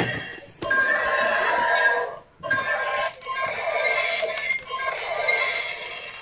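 Ultraman Decker Ultra D Flasher DX toy playing its electronic transformation music and sound effects from its small built-in speaker, in short phrases with brief breaks about half a second in and just after two seconds.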